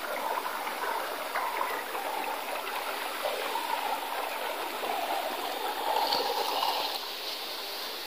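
Steady rushing, water-like noise that swells a little about six seconds in.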